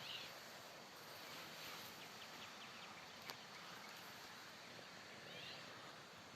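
Faint outdoor ambience: a steady background hiss with a few brief high bird chirps, a short run of quick ticking calls near the middle, and a single click a little after that.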